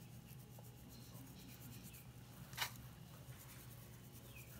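Faint rustling of dried oregano crumbled between fingers over a batter-filled foil pan, with one sharp click about two and a half seconds in.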